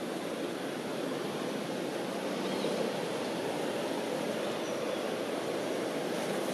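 Steady outdoor background noise, an even rushing hiss with no distinct events, and a couple of faint high chirps in the middle.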